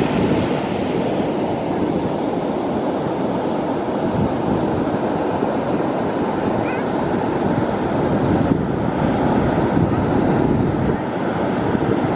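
Ocean surf washing onto the shore, a steady rushing noise with no pauses, with some wind on the microphone.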